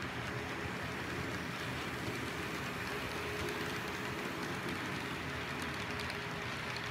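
Model train running past: the locomotives' electric motors and metal wheels on the rails give a steady whirring noise with a faint hum, and light clicking comes in near the end as the freight cars follow.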